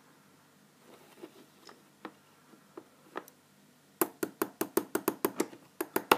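Small metal lock parts clicking and tapping as a padlock is handled and worked on: a few faint scattered ticks, then from about four seconds in a fast run of sharp clicks, about six a second, with a short break near the end.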